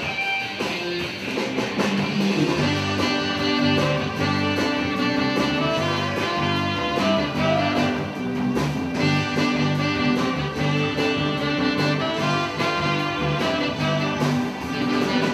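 Background music: an upbeat instrumental with guitar and other instruments over a steady beat.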